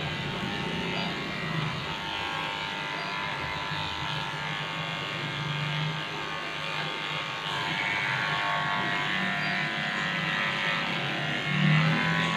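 Small cordless electric pet clipper running steadily with a fine, even hum while trimming the fur around a dog's paw.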